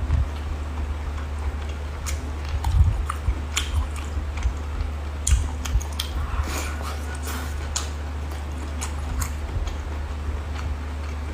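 Close-up eating sounds: chewing and biting with scattered sharp, wet clicks and a few soft thumps, over a steady low hum.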